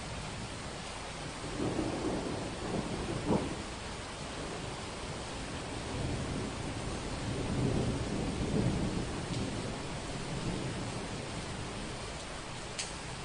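Steady heavy rain with thunder: a rumble about two seconds in that ends in a sharper crack, then a longer rolling rumble through the middle.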